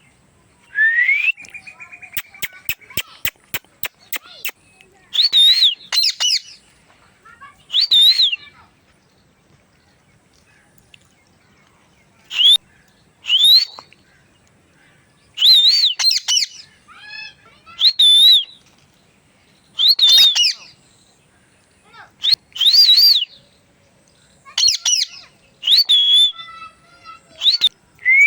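Parrot calling and whistling in short separate bursts, some of them rising or wavering whistles, with a quick run of sharp clicks about three seconds in.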